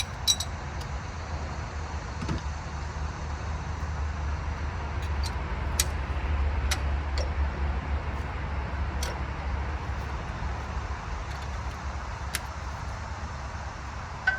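Scattered sharp metallic clicks and clinks of hand tools, a dozen or so spread unevenly, over a steady low rumble that swells in the middle and eases off.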